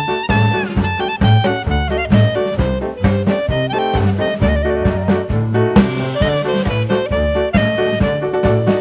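Background music: upbeat swing-jazz with brass and saxophone over a walking bass and a steady beat.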